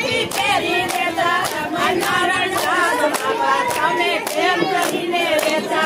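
A group of women singing a song together and clapping their hands in time, about two claps a second.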